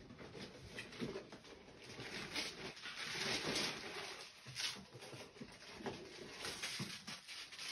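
Plastic carrier bags and wrapping paper rustling and crinkling as they are handled, in uneven crackles and rustles.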